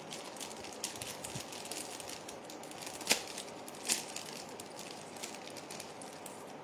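Earrings and their packing being handled: faint rustling with scattered small clicks, and two sharper clicks about three and four seconds in.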